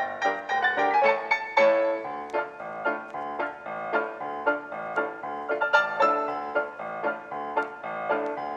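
Background piano music: a solo piano playing a steady run of struck notes.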